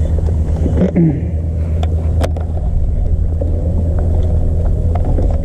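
Electric bow-mounted trolling motor running with a steady low hum, with a few sharp clicks about two seconds in.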